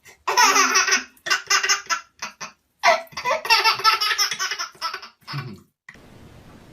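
A baby laughing hard in repeated bursts, with the longest runs of laughter near the start and around three to four seconds in, tailing off into shorter bursts.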